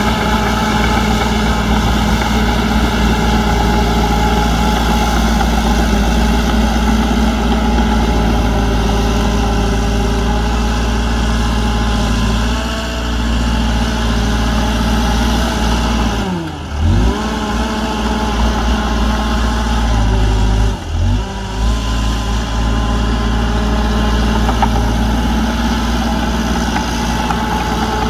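Diesel engine of heavy earthmoving equipment running steadily, its pitch briefly dropping and coming back up twice in the second half.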